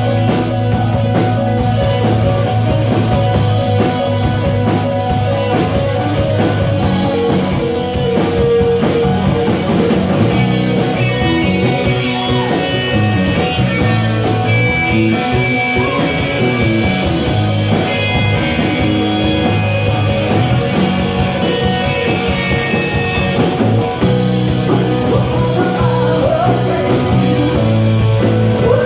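Rock band music with guitar and drum kit, playing steadily, with held guitar notes.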